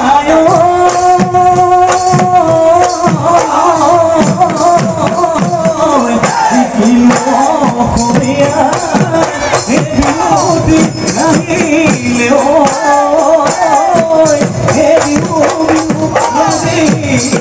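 Live Bihu folk music: a man sings into a microphone over dhol drums beating a steady, driving rhythm with jingling percussion. He holds one long note for about the first two seconds, then sings a wavering melodic line.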